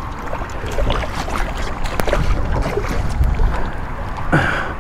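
Hooked striped bass splashing and thrashing at the water's surface beside the boat as it is brought in, with scattered sharp splashes over a steady low rumble.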